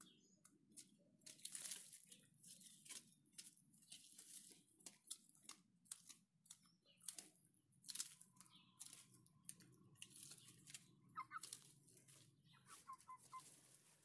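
Faint, irregular crackling and rustling over a steady low hum. A few short animal calls come near the end.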